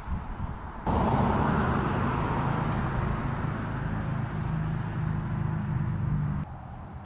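A motor running steadily with a low, even hum and a hiss above it, starting suddenly about a second in and stopping suddenly near the end.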